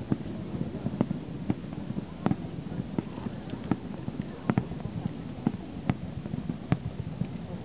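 Fireworks bursting: sharp bangs at irregular intervals, roughly one a second, over the low murmur of a crowd.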